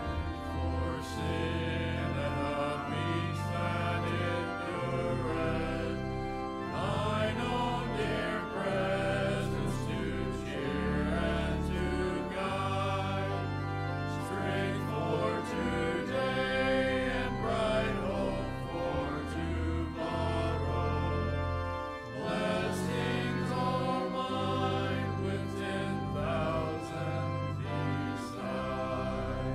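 Voices singing a hymn together with organ accompaniment, the organ holding long low notes beneath the melody.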